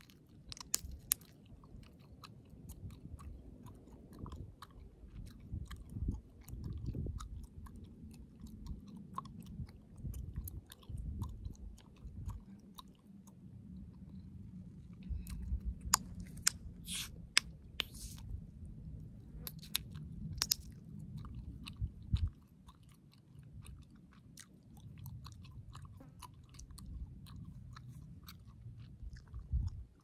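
Chewing gum, close to the microphone: steady chewing with sharp snaps and pops of the gum, a run of louder ones a little past the middle, over a low rumble.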